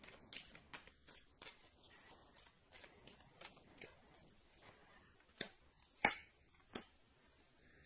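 Tarot cards being handled: a run of soft clicks and flicks as cards are shuffled and drawn from the deck. A few louder sharp slaps follow between about five and seven seconds in, the loudest near six seconds, as cards are laid down on the cloth.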